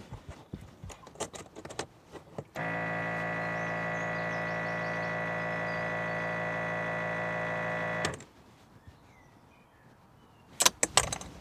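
The camper's 12-volt water pump starts about two and a half seconds in, runs with a steady hum for about five and a half seconds, and cuts off suddenly. A few clicks follow near the end.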